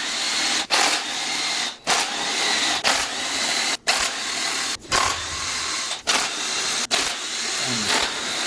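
Power tool running in repeated bursts of about a second each, with short breaks between them.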